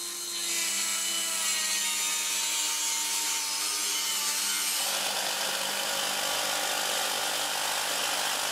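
Dremel rotary tool with a cut-off wheel cutting thin sheet steel: a steady high whine with hiss, its pitch sagging slightly under load. About five seconds in it gives way to a harsher, hissier cut, a jigsaw sawing through the same steel panel.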